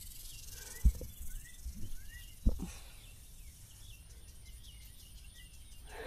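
Summer outdoor ambience: a steady high insect hum with several short, faint rising bird chirps. Two dull thumps land in the first half.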